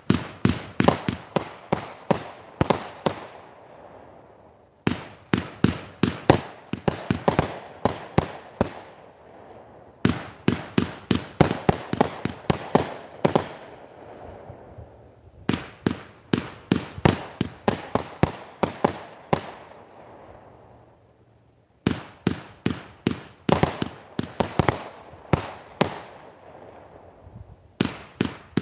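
A 500-gram consumer firework cake firing: volleys of sharp bangs at several a second, each volley lasting a few seconds and trailing off into a fading crackle, repeating about every five to six seconds.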